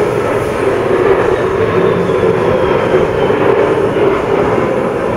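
Electric bench sharpening machine running steadily with a Fiskars axe blade held against it, grinding the edge.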